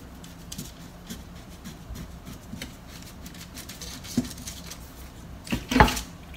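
A chef's knife cutting through soft sponge cake on a plastic cutting board, faint with small scraping ticks, then a louder clatter near the end as the knife is put down on the board.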